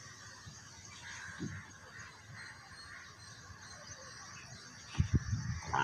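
A calf bawls for its mother: a single pitched moo begins just before the end. It is preceded by loud low thuds from about a second earlier, over a faint background.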